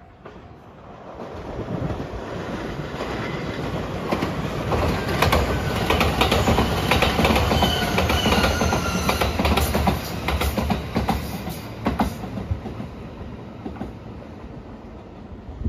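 Rapid Marine Liner electric train passing at speed: rumbling wheels with a run of rail-joint clicks. It builds over the first couple of seconds, is loudest in the middle as the cars go by, and fades as the train moves away.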